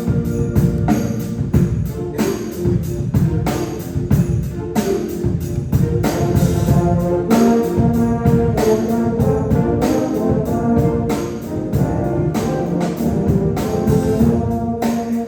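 Concert band playing, brass carrying the music over percussion strikes on a steady beat.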